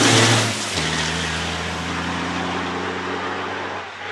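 MAN racing truck's 13-litre single-turbo diesel engine driving away. It is very loud at first, then a little under a second in it drops to a steadier, lower drone that slowly fades.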